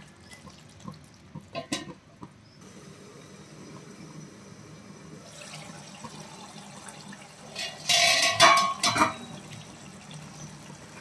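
Prawn tomato curry simmering in a pan, a wet bubbling sound. There are a few light clicks in the first two seconds, and a much louder rushing noise for about a second and a half, beginning a little under eight seconds in.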